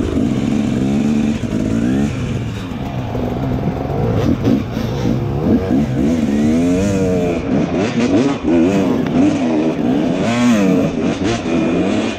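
Enduro dirt bike engine revving up and down over and over as the throttle is opened and closed, its pitch rising and falling.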